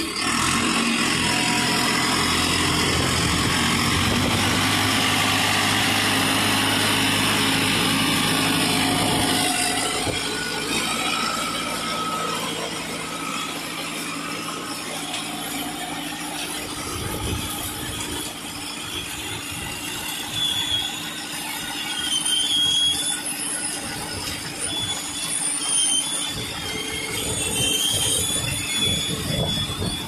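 Self-loading concrete mixer truck working. Its engine runs loud and steady for about the first ten seconds, then drops lower. In the second half, metal squeals and the rush of sand and gravel sliding over the steel loading bucket and chute are heard.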